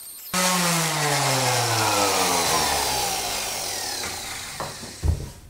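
Electric random orbit sander spinning down after being switched off, its motor whine falling steadily in pitch over about four seconds. A short thump comes near the end.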